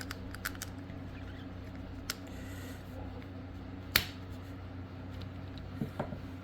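A few light clicks and taps from handling an H0 model locomotive on a coupler height gauge while its coupler height is checked, over a steady low hum. The sharpest click comes about four seconds in, with a few more near the end.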